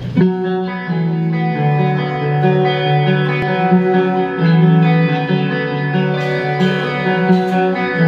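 Live rock band playing: electric guitars ring out in long sustained notes through effects, the melody moving every half second or so, starting just after the beginning. A few short sharp hits sound in the second half.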